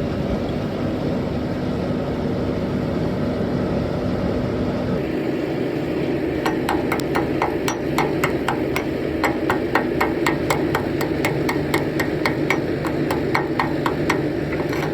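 Rapid, even metal-on-metal hammer strikes, about four a second, beginning about six and a half seconds in, over a steady machine hum.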